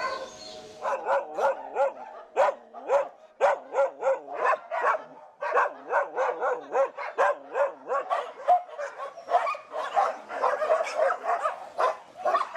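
Several dogs barking, a quick string of short barks about two or three a second that starts about a second in and becomes a dense, overlapping chorus near the end.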